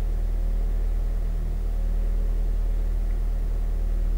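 2011 Toyota Corolla idling, heard from inside the cabin, with a steady low drone and a fast flutter from under the car, a noise that sounds like a helicopter. It appeared after a front wheel dropped into a deep pothole, and the owner can't tell whether it comes from the engine or the spring.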